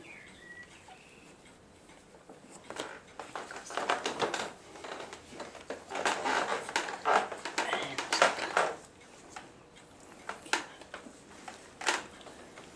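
Newspaper rustling and crackling irregularly as two-week-old Cairn Terrier puppies shuffle about on it, busiest in the middle, with a few sharp crackles near the end.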